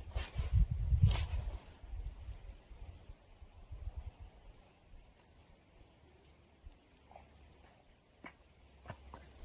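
Wind buffeting the microphone in low gusts for the first couple of seconds, then a quiet open-air background with a steady high insect drone and a few faint ticks near the end.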